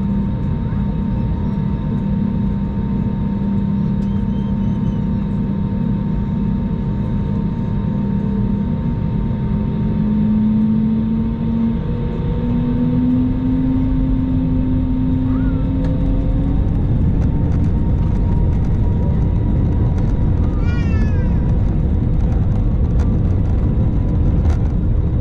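Airbus A321 cabin noise at takeoff power, heard from a window seat: a steady jet engine roar and airflow rumble, with an engine hum that rises in pitch around the middle. A short run of faint chirps comes near the end.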